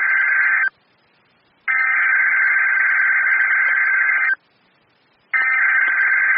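Emergency Alert System SAME header on NOAA Weather Radio: harsh, buzzing digital data tones sent as repeated bursts of about two and a half seconds, with about a second of silence between them. One burst ends just under a second in, a second burst follows, and a third starts near the end. This is the coded header that sets off receivers for the Child Abduction Emergency (AMBER Alert).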